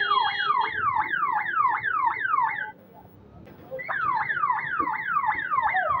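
Aftermarket electronic police siren fitted to an electric scooter, sounding a fast repeating falling wail, about three sweeps a second. It stops about two and a half seconds in and starts again about a second later.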